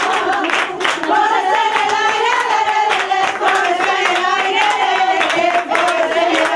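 Flamenco-style singing of a long, wavering melody, accompanied by hand-clapping (palmas) throughout.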